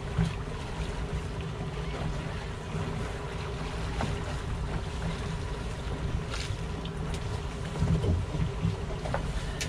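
Twin outboard motors running steadily at trolling speed, with wind buffeting the microphone and water rushing past the stern.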